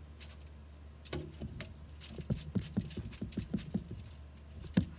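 Steak knife sawing back and forth through a grilled rib-eye on a foil-lined tray, a quick run of short strokes about five a second, as the steak is cut open to check its doneness. A single sharp click near the end.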